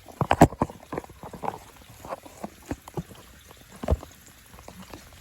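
Irregular clicks, taps and knocks of a phone being handled and propped in place against the microphone.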